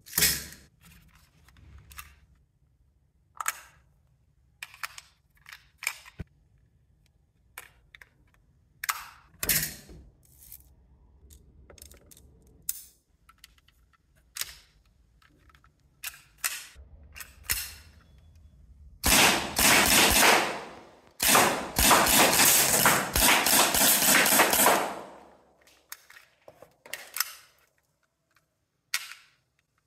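Daisy 5501 Powerline CO2 blowback pistol being handled and loaded: scattered metal and plastic clicks and knocks from the CO2 cartridge, magazine and slide. Then two loud spells of rapid-fire shots about 19 and 21 seconds in, the second lasting about four seconds.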